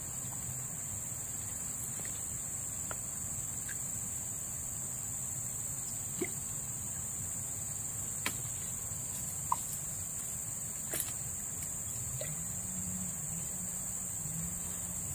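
Insects droning steadily at a high, even pitch, with a few faint short chirps and clicks scattered through. A low hum comes in about twelve seconds in.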